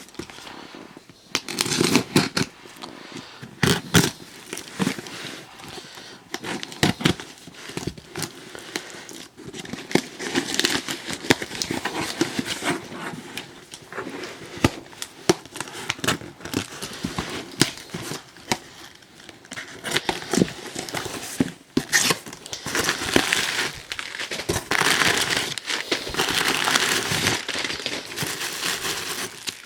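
Packaging crinkled and rustled by hand in irregular bursts, as the wrapping of sealed candy containers is handled and opened. It is busiest in a stretch near the middle and again late on.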